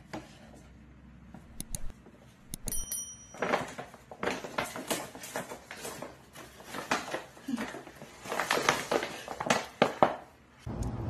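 Stiff paper shopping bag rustling and crinkling as it is handled and fitted over a small pet, starting a few seconds in and stopping shortly before the end.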